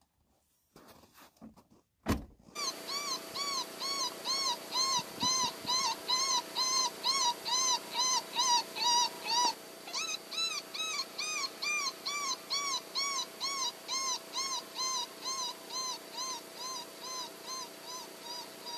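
Electronic predator caller playing a canine distress sound: high, whining yelps, each rising and falling in pitch, about two to three a second over a steady hum, with a brief break near the middle before the series starts again. A single thud comes about two seconds in, just before the calling starts.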